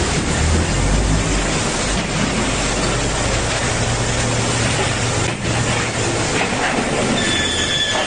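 Roller-type board saw cutting machine running: a steady, loud mechanical noise with a low hum underneath.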